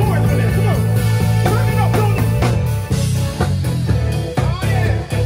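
Live band of electric bass guitar, keyboard and drum kit playing a groove, with a steady bass line under regular drum hits.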